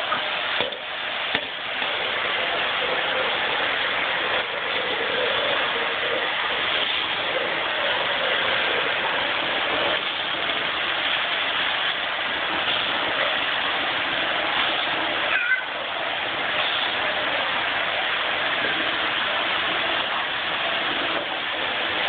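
Vacuum cleaner running steadily, a continuous even whoosh of motor and suction as it is pushed about.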